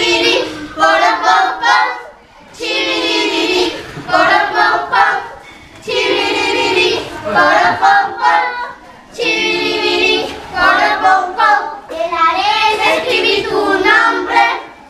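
A group of children singing a serenade together in Spanish, unaccompanied, in phrases of long held notes with short breaks for breath between them.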